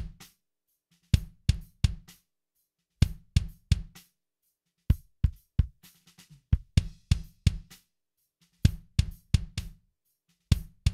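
Recorded kick drum played back with a sampled kick layered under it, in quick clusters of three or four hits about every two seconds, with a little snare and hi-hat. The sample's trigger notes have just been nudged forward to line up with the recorded kick hits, which cures the earlier flam.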